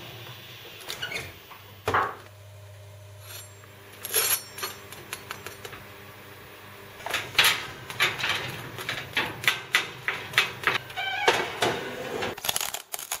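Handling at a kitchen grill oven. The wire rack knocks once about two seconds in, a faint low hum runs for a few seconds, and then comes a dense run of sharp clicks and knocks, ending with the oven door being pulled shut.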